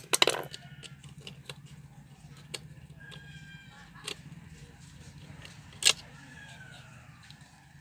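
Scattered clicks and knocks of a plastic study lamp's housing and parts being handled and pried apart, over a steady low hum.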